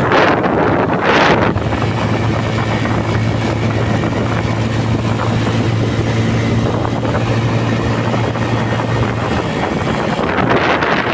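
Bajaj Pulsar LS135's single-cylinder engine running at a steady cruise, heard from the saddle, with a constant rush of road and wind noise. Wind hits the microphone louder in the first second or so and again near the end.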